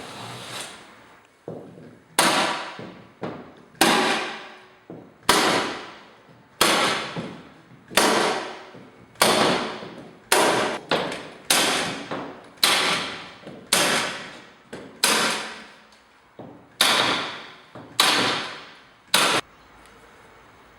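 A staple gun firing staples through the set leg of a PVC plastering bead into plasterboard: about fifteen sharp shots, roughly one every second or so, each echoing briefly in the room.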